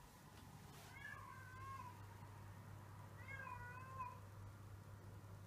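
Cat in heat calling twice, faint: two long, wavering meows, one about a second in and one about three seconds in. These are the calls of a cat in heat.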